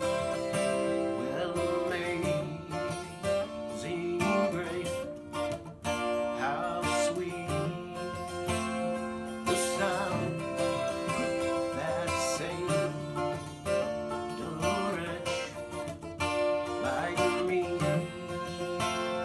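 Guitar playing an instrumental passage, chords strummed and notes picked.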